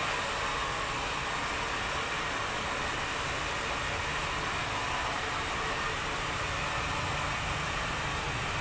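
Hand-held hair dryer blowing steadily, a constant rushing hiss with no change in speed.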